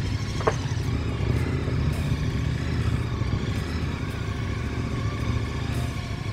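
Motorcycle engine running at low speed as the bike rolls slowly over a gravel track, with a brief squeak about half a second in.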